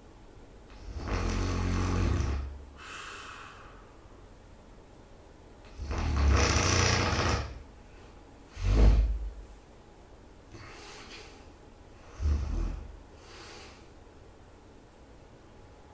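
A person snoring loudly: four loud snores a few seconds apart, each followed by a quieter breath. The third snore, about nine seconds in, is short and abrupt.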